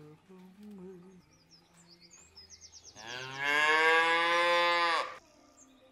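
A cow mooing once: one long call of about two seconds, starting about three seconds in.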